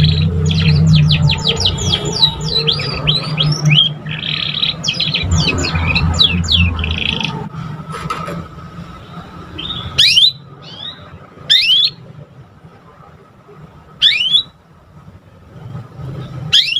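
Young canary singing: quick runs of short chirping notes through the first seven seconds over a low hum, then single sharp rising call notes every couple of seconds.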